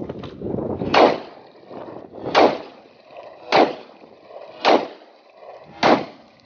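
Five shots from a Beretta 92 FS 9 mm pistol, fired a little over a second apart, each a sharp, loud crack.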